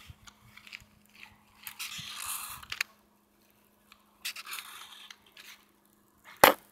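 Sharpie felt-tip marker drawing on paper: two scratchy strokes, about two seconds in and again about four and a half seconds in, as a heart shape is drawn. A sharp knock near the end.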